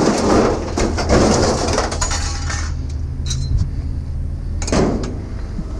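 Clinking and rattling of loose glass and metal items over a low running engine hum. The clatter is densest over the first two to three seconds, quieter after that, with one more short burst a little before the end.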